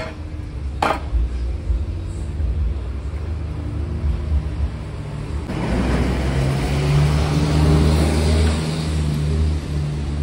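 A motor vehicle engine running close by with a steady low hum. About halfway through it swells into a louder rushing sound. Two sharp knocks come near the start.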